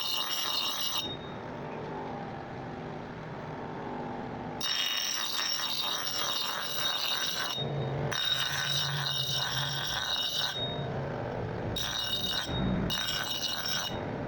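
Metalworking noise in short, abruptly cut clips: steady high ringing tones over a rough scraping hiss, with a quieter, duller stretch early on.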